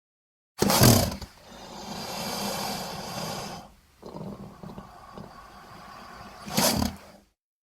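Alligator or crocodile sound effect: a loud sudden burst about half a second in, then a rough, noisy sound for several seconds, easing off partway, and a second sharp burst near the end before it cuts off.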